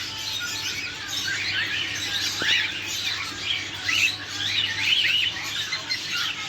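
Many caged pet birds chirping and squawking together: a dense stream of short, arched whistling calls overlapping one another, over a faint steady low hum.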